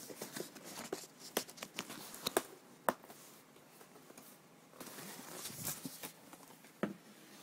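Handling noise from cardboard box packaging being moved and set aside: a run of light knocks and taps over the first few seconds, then softer rustling, and one more knock near the end.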